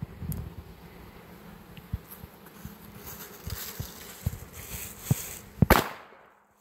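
Mobster M95 firecracker: its lit fuse fizzes and sputters for a couple of seconds, then the cracker goes off with a single sharp bang near the end.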